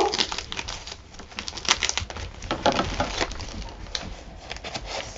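Plastic mailing envelope crinkling and rustling as it is handled and opened, in a quick, irregular run of small crackles.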